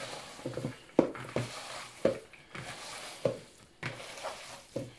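Hands kneading raw beef and lamb mince in a plastic bowl: wet squelching and squishing, with a sharper push about once a second.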